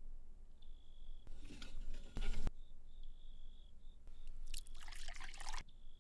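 Liquid pouring in two bursts, the first just over a second long and ending loudest, the second about a second and a half long, with a faint high whine that comes and goes.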